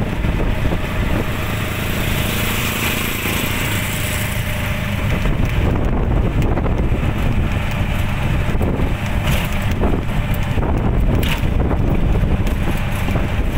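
A road vehicle on the move, a steady low rumble, with wind buffeting the microphone.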